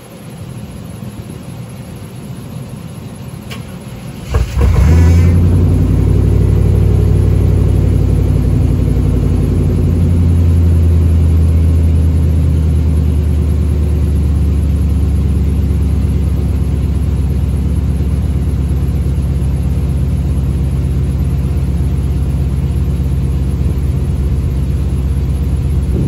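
Chevrolet OBS pickup's engine cold-starting in about 15 degrees: it cranks briefly, catches about four seconds in, then runs at a loud, steady idle. The owner says the truck did not like the start, the coldest it has ever had.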